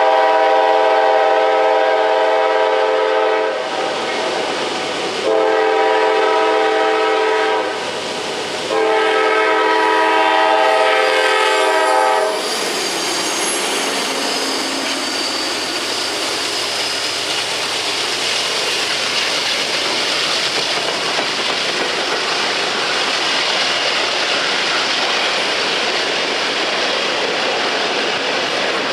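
Diesel freight locomotive's multi-note horn sounding for a grade crossing: a long blast, a short one, then another long one. The train then passes close by with a steady rumble and wheel clatter.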